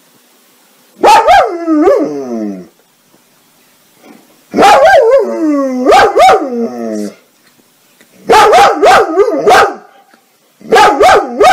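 German Shepherd barking in four bouts of several barks each, about a second in, near the middle, and twice toward the end. Some barks are drawn out and slide down in pitch, half bark, half howl.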